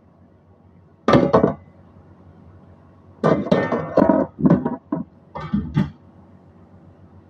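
Stainless steel bowl and cookware clattering: one knock about a second in, then a run of clanks, some with a brief metallic ring, from about three to six seconds in, as a glass lid is set onto the wok.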